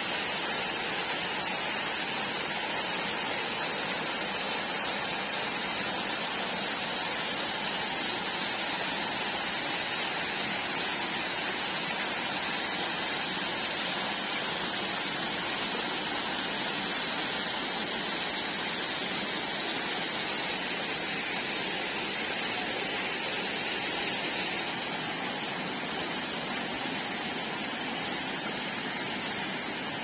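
Small forest waterfall cascading over boulders: a steady, even rush of falling and splashing water, a little softer for the last few seconds.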